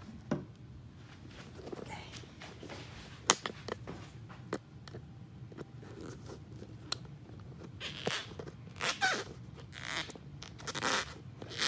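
Handling noise and rustling: scattered sharp clicks and knocks, then a few longer crinkly rustles near the end.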